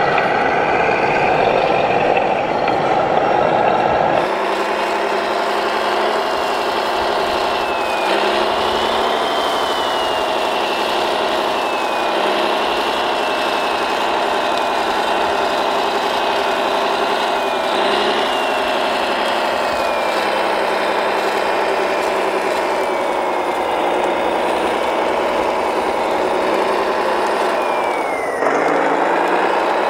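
1/14-scale RC construction machine running: a steady engine-like hum with a higher motor whine that rises and falls several times. The sound changes abruptly about four seconds in.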